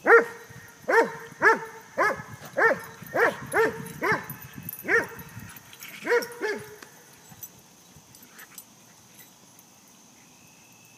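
A dog barking repeatedly, about ten loud barks in quick succession, then stopping about six and a half seconds in.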